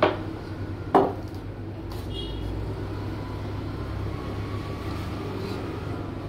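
Steady low hum of café machinery, with two sharp knocks about a second apart at the start and a short faint ringing clink about a second later.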